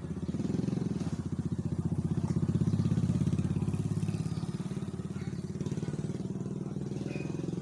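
A small engine running close by with a fast, even pulse, growing louder to a peak about three seconds in, then easing a little.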